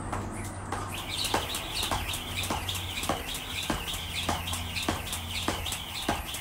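Jump rope slapping the concrete once per turn, a steady rhythm of sharp slaps a little under two a second. From about a second in, a high wavering sound runs over them.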